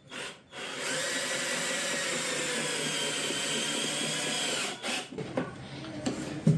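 Cordless drill with a square-drive bit driving a screw into wooden pillar timber: a short burst, then a steady run of about four seconds with the pitch sagging slightly under load, followed by a few light knocks.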